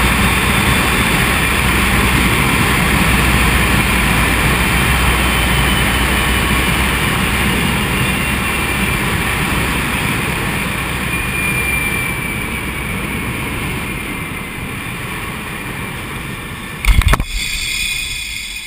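Loud rushing air over the microphone and the trolley running along the cable of a high-speed zip line, steady and then slowly fading as the ride slows. Near the end, a single sharp clunk as the trolley comes into the brake at the landing.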